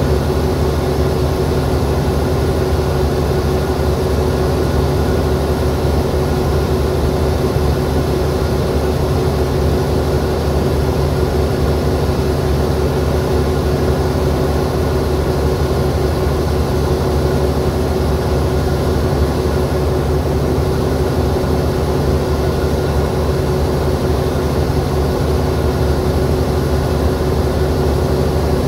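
Alsthom AD24C diesel-electric locomotive idling steadily: a deep, even engine hum with a constant higher-pitched tone over it.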